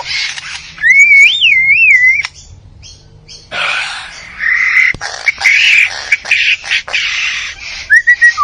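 A bird calling: a clear whistle that rises and falls for about a second and a half, then harsh, raspy squawking calls for several seconds, and a second short whistle near the end.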